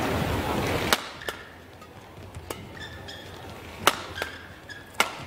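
Badminton doubles rally: sharp racket strikes on the shuttlecock roughly once a second, with short squeaks of court shoes between them. Crowd noise in the first second cuts off abruptly about a second in.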